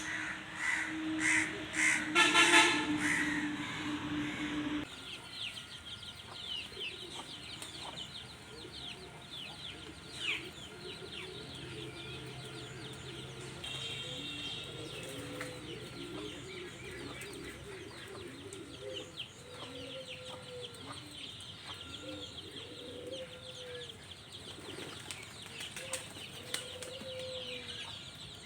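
Crows cawing over a steady low tone for the first few seconds; then, after an abrupt change, many small birds chirp quickly and high while chickens cluck repeatedly in low, rising-and-falling calls.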